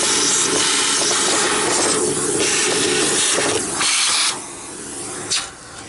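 Miele vacuum cleaner sucking debris out of another vacuum's bag compartment through its hose nozzle: a loud, steady rushing of air with a hum under it. About four seconds in the rushing drops sharply, with a brief loud surge just before the end.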